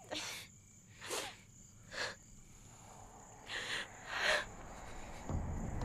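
A woman sobbing: five short, breathy gasps and sniffles over a steady chirr of crickets. A low rumble comes in near the end.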